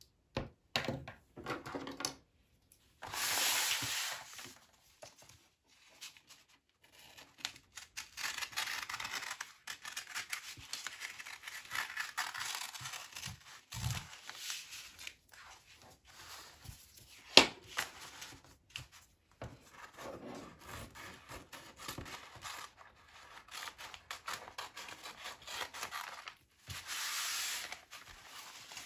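Small scissors cutting through thin paper from a roll, in long runs of snipping, with the paper rustling and sliding over a wooden table. There is one sharp click a little past halfway.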